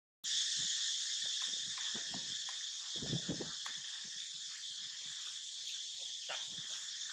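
Insects droning steadily in a high, even chorus, with scattered soft rustles and clicks and a louder low rustle about three seconds in.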